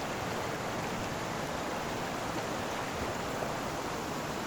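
A river's water rushing steadily, an even noise without breaks. It is a normally dry seasonal river running with water after heavy rain.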